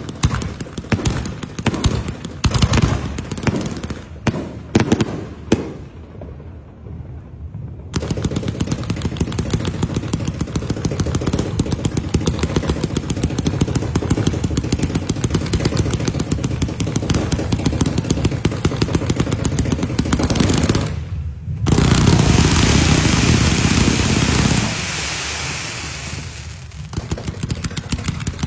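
Ground-launched fireworks cakes firing: rapid cracks and bursts, then a long fast, even run of popping shots. Just over twenty seconds in it breaks off briefly, a loud dense crackle fills a few seconds, and then the quick popping picks up again.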